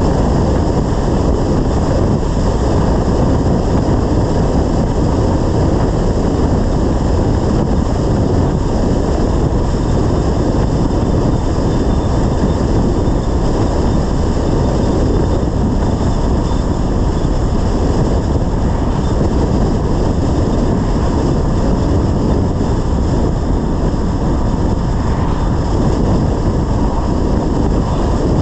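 Steady road and wind noise from a BMW 330i driving along, a constant low rushing that never changes.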